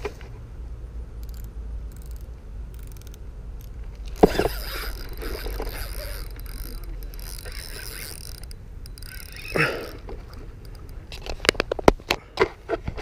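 Camera handling noise over a steady low rumble: a sharp knock about four seconds in followed by a few seconds of rustling hiss, and a quick run of sharp clicks and taps near the end as fingers fumble over the camera.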